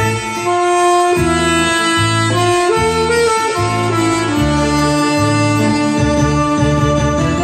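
Alto saxophone playing a slow enka melody in long held notes, over a backing track with a low bass line.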